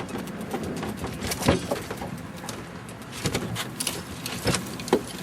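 A few sharp knocks and clatters from gear being handled in a fishing boat, over a steady background noise.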